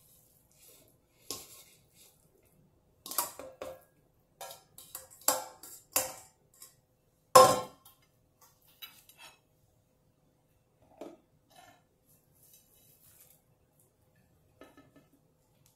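Irregular clinks and knocks of small steel bowls, a plate and a utensil as ingredients are tipped into a food chopper's bowl. The loudest knock comes about seven seconds in. The chopper's motor is not running.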